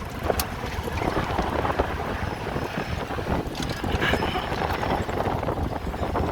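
Wind buffeting the microphone over a steady rushing, splashing din of a herd crossing the Mara River.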